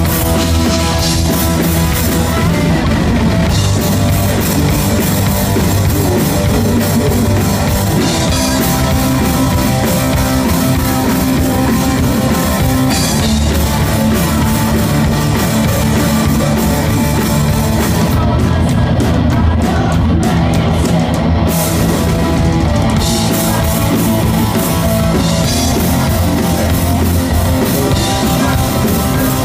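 Live rock band playing loud, with electric guitar and a driving drum kit.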